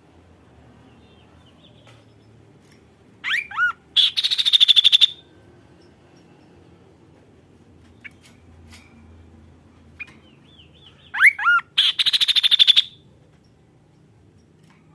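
A kaso-kaso songbird singing two loud phrases about eight seconds apart, each a few quick swooping whistled notes running straight into a fast, rattling trill about a second long.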